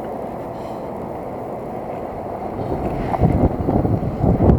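Steady wind rumble on the camera microphone, with louder low buffets about three seconds in and again near the end.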